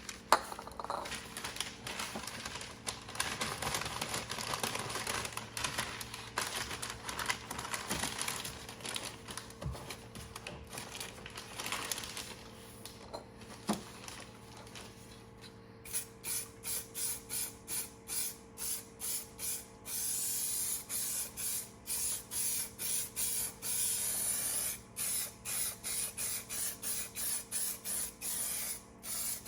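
Aerosol can of primer hissing as it sprays. Over the second half it goes in quick repeated short bursts, with a few seconds of steady spray in the middle.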